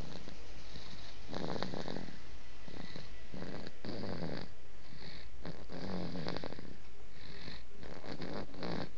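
A man snoring: several rasping snores at an uneven pace over a steady low hum.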